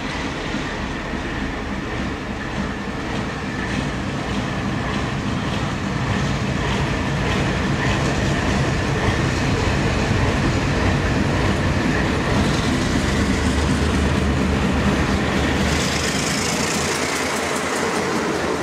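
Diesel-electric locomotive approaching and passing close by, its engine rumble growing louder throughout. A steady high whine runs through it, and near the end there is a rush of wheel and rail noise as it draws level.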